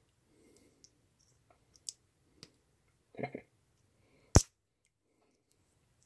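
Small plastic clicks and handling noises of an insulated spade terminal being worked into the slot of a T-tap insulation displacement connector, with one sharp, loud click a little over four seconds in.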